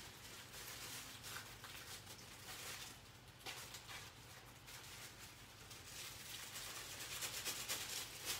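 Faint, scattered rustling and short hissy scrapes, off in the background, over a low steady hum.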